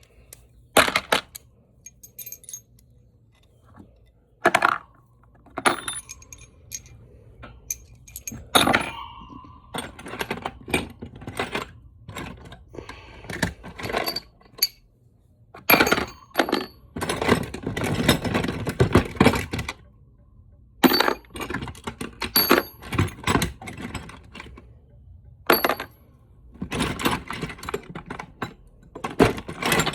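Metal sockets and hand tools clinking and clattering as they are handled and set into a tool box: an irregular run of sharp metallic clicks and knocks, some ringing briefly.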